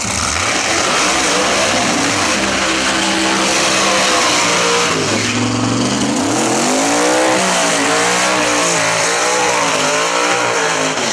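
Drag race car engines running at high revs under full throttle, their pitch climbing, dropping around the middle and climbing again several times, over a loud rushing hiss.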